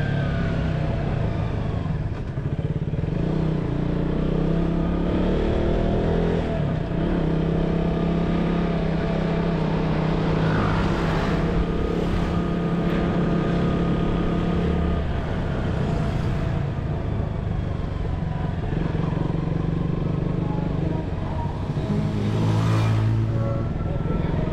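Motorcycle engine running under way, its note rising and falling a few times as the speed changes.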